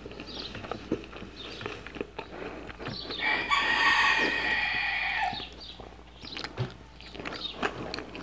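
Close-miked chewing and eating sounds, small wet clicks throughout, with a rooster crowing once for about two and a half seconds in the middle, the loudest sound here.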